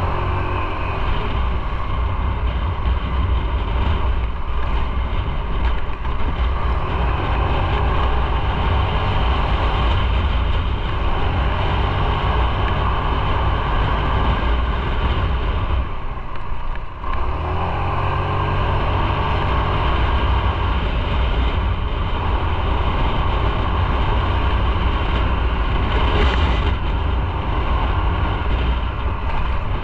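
Motorcycle engine running while under way. About halfway through it briefly eases off, then climbs in pitch again as it picks up speed.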